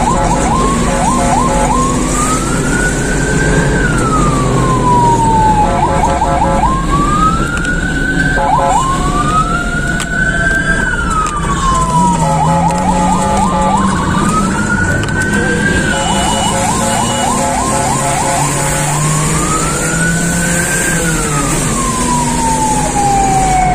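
Emergency vehicle siren on the move, cycling between a slow wail that rises and falls and short bursts of rapid yelping chirps. The wail comes round four times, over the vehicle's engine and road noise.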